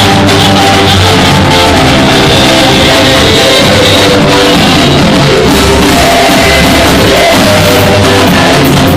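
Loud live worship music in a church hall: a band with electric guitar and drums playing, with voices singing and shouting along.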